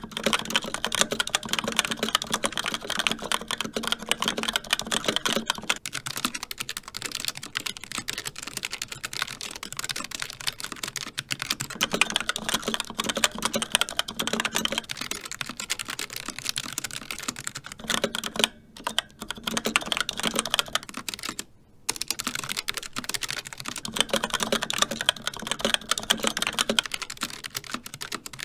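Mechanical keyboard being typed on quickly and continuously: a dense patter of key clicks and bottom-outs, with two short breaks about two-thirds of the way through.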